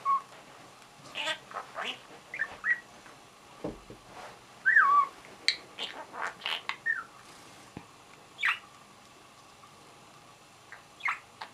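Lutino budgerigar chattering: short chirps, squawks and whistled notes that swoop up and down, in bursts, with a quieter pause near the end.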